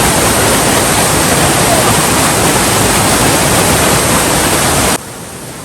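Loud, steady rush of a waterfall on a rocky hill stream. It cuts off abruptly near the end, leaving only a quieter hiss.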